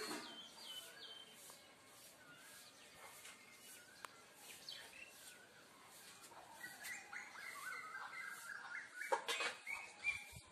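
Small birds chirping and twittering, the calls getting busier and louder in the second half, loudest near the end.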